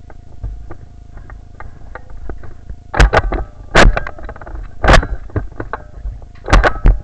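Loud irregular thumps and rubbing on the camera's microphone, five in the last four seconds, with small scattered clicks before them.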